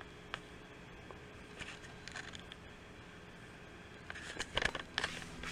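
Faint handling noises of work on a computer build: a light click near the start, soft rustles about two seconds in, then a cluster of louder rustling and clicks from about four seconds on, over a low steady hum.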